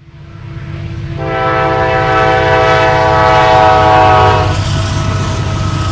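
Diesel freight locomotive's air horn sounding one long chord from about a second in until about four and a half seconds, over a low train rumble that fades in at the start.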